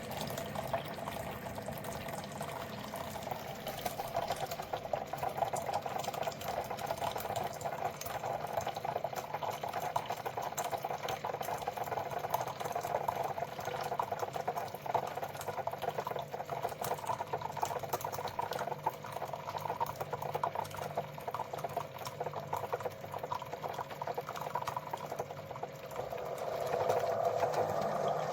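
Single-serve pod coffee maker brewing: a steady bubbling and trickling of hot water and coffee, louder near the end.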